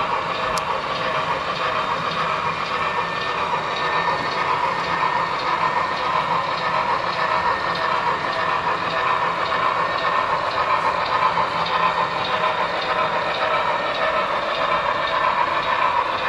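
Model freight train cars rolling steadily along the layout track, a continuous even running noise of wheels on rail.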